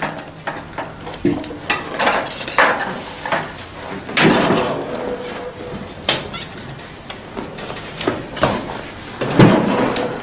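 Metal surgical instruments clinking and clattering against a steel tray as they are laid out, with several sharper knocks.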